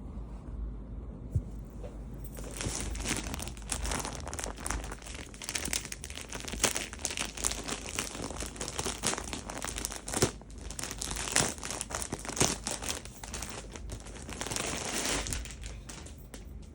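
Packaging around a lengha being unwrapped by hand, crinkling and rustling continuously. It is quieter for the first couple of seconds, then louder until near the end.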